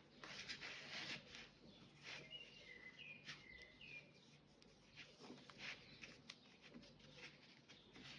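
Faint rustling and soft scraping of 4 mm macramé cord being pulled and knotted by hand, with a few short high chirps between about two and four seconds in.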